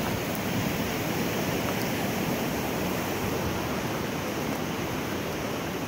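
Steady rush of a mountain creek flowing over rocks, an even noise with no distinct events.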